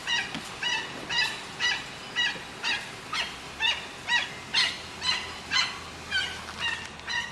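An animal's repeated barking calls, short and evenly spaced at about two a second, keeping up a steady rhythm.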